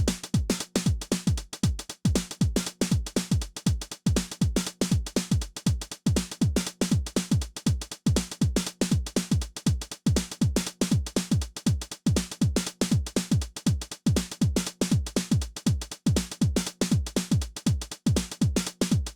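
Behringer RD-9 analog drum machine, a TR-909 clone, playing a steady techno pattern. A kick drum falling in pitch lands on every beat, about two a second, under busy hi-hats and cymbals, and a low droning tone comes and goes.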